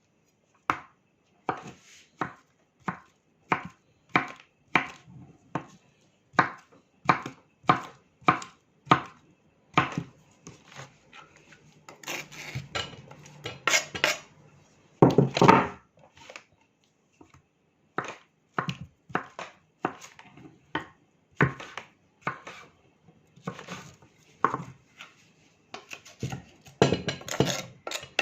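Kitchen knife chopping mango on a cutting board: a steady run of sharp taps about two a second, with a busier patch of knocks and scraping around the middle and again near the end.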